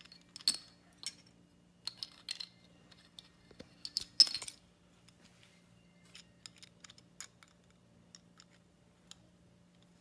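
Small parts of a toy construction kit clicking and clinking as they are handled and set down, in scattered sharp knocks, the loudest about half a second and about four seconds in, lighter ticks after that.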